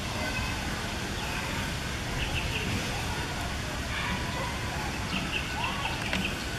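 Outdoor ambience: a steady hiss and low rumble, with faint short bird chirps in small runs now and then.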